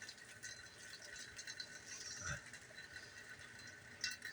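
Rain falling faintly, with scattered drips and small ticks and a few sharper clicks near the end; a faint steady high tone runs underneath.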